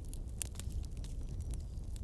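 Wood fire burning with a steady low rumble and scattered sharp crackles and pops, a few standing out louder.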